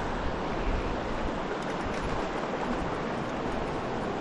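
Shallow river water running steadily over stones in a riffle, a constant rushing noise.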